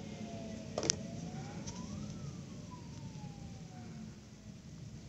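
A faint siren wailing, its pitch slowly falling, then rising and falling again, over a low steady hum. A single sharp click about a second in.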